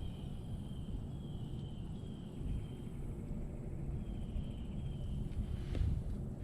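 Outdoor natural ambience: a steady low rumble with faint, thin high-pitched calls of about half a second each, repeating every second or so, and a single light knock near the end.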